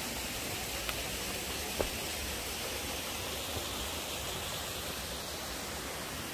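Steady rushing of the Tama River's water down in Hatonosu Gorge, an even noise with no change, with a couple of faint knocks about one and two seconds in.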